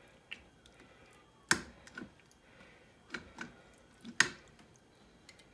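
Kitchen tongs clicking and knocking against the inner pot of a Ninja multicooker while stirring shredded beef in thick sauce: scattered sharp clicks, two loud ones about a second and a half in and just after four seconds.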